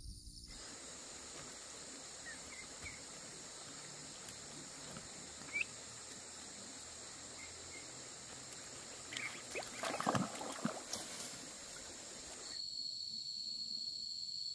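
Outdoor countryside ambience: a steady high-pitched insect drone with a few short bird chirps, and a brief flurry of rustling and knocks about ten seconds in. Near the end the background switches to a steady single-pitched insect trill.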